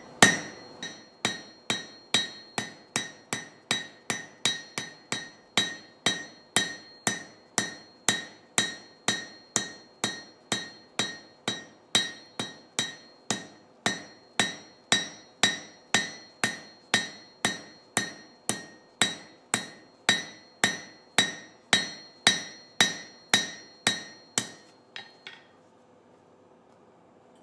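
Blacksmith's hand hammer striking hot steel on an anvil at about two blows a second, each blow ringing. The steel is the slug on the end of the stem, being flattened out into a leaf. The hammering stops about 25 seconds in.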